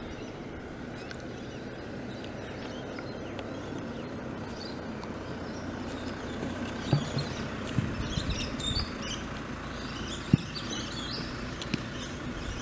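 Steady hum of road traffic passing, with birds chirping through the second half. A few short sharp knocks stand out, the loudest about two-thirds of the way in.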